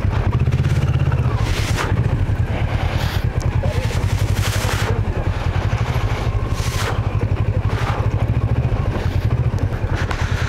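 Kawasaki Versys 650 parallel-twin motorcycle engine running steadily under way, a fast even pulse, with a few brief bursts of rushing hiss over it.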